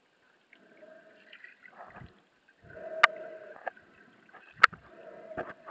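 Muffled swishing of water around a camera held underwater, heard from inside its housing, with two sharp clicks about three and four and a half seconds in.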